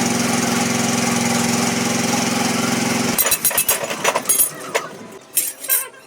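A machine runs with a steady pitched hum and cuts off suddenly about three seconds in. Scattered sharp clicks and knocks follow.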